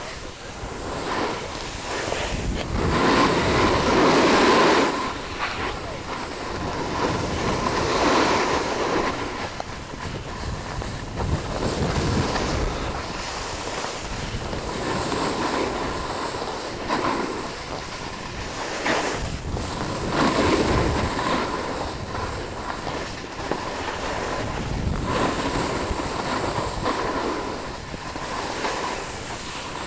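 Snowboard sliding and scraping over hard-packed snow, the edge scrape rising and falling in surges every few seconds, heard close up on a helmet camera.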